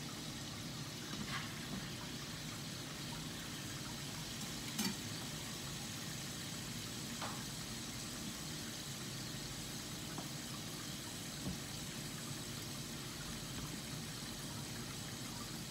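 Ground-beef burger patties sizzling steadily in a frying pan, with a few faint clicks and knocks of kitchen utensils, the sharpest about five seconds in.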